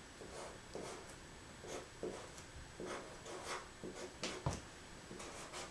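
Expo dry-erase marker writing on a whiteboard: a string of short, faint pen strokes at uneven intervals.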